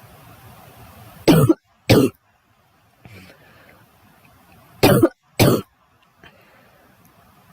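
A girl coughing: two pairs of short coughs, the second pair about three and a half seconds after the first.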